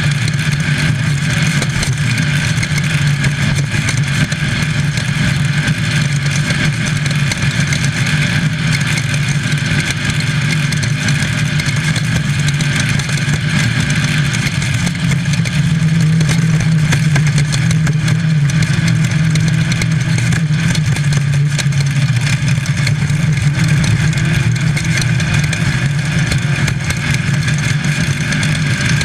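Volkswagen engine of a Baja Bug off-road race car running hard under load, heard from inside the car, with a steady haze of noise and constant rattling as it runs over rough desert ground. The engine note climbs and gets louder about halfway through, then eases back.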